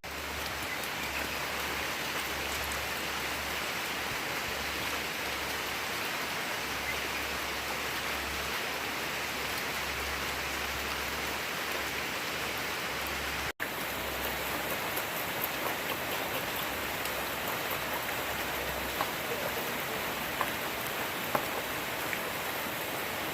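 Steady rain falling, an even hiss, with a short break about two-thirds of the way through and a few faint drips or ticks after it.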